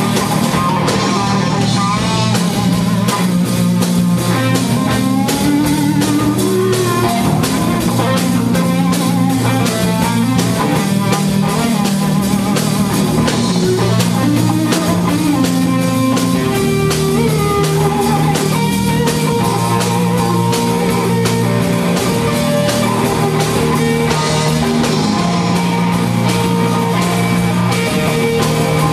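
Live rock band playing, with electric guitar over a drum kit.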